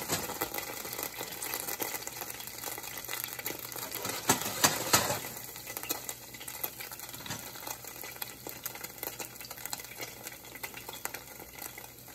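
Chopped ginger sizzling and crackling in hot oil in a nonstick saucepan. A silicone spatula stirs through it, loudest about four to five seconds in.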